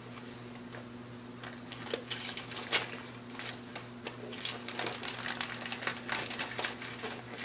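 Wrapping paper rustling and crinkling as a present is unwrapped by hand, in a string of irregular crackles and tearing sounds.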